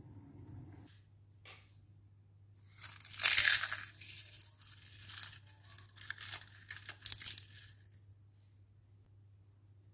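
Dry, crisp material torn and crumpled by hand: one loud tearing crackle about three seconds in, followed by a run of shorter crinkles that stop at about eight seconds.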